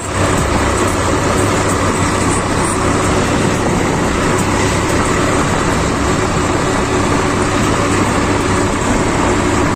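Swaraj 855 tractor's three-cylinder diesel engine running steadily while the tractor drives along a road, heard from the driver's seat.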